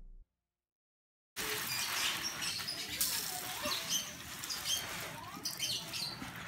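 After the music's tail and a second of dead silence, a spray of water patters onto potted plants' leaves and soil, about a second and a half in. Small birds chirp over it.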